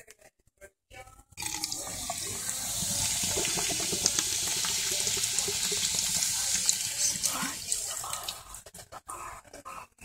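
Soda pouring out of an opened can into a stainless-steel sink, splashing at the drain and fizzing. It starts about a second and a half in, runs steadily, and tails off near eight seconds.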